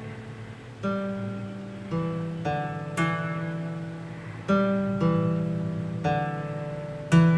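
Background music: slow acoustic guitar chords, struck about once a second and left to ring.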